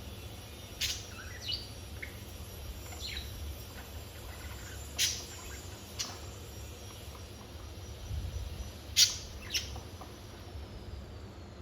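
Pet budgerigars giving short, sharp chirps at scattered moments, the loudest about nine seconds in, over a steady low hum.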